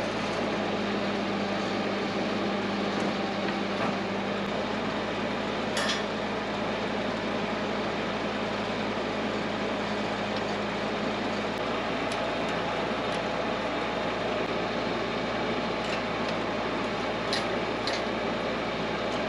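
A steady machine-like running noise with a low hum that drops out a little over halfway through, and a few sharp metallic clinks, one about six seconds in and two near the end.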